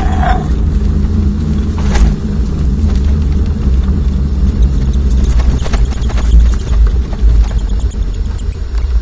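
Heavy wind noise on the microphone and the rumble of a pet stroller's wheels rolling over a rough path, with a few sharp knocks and rattles, one about two seconds in and several more about halfway through.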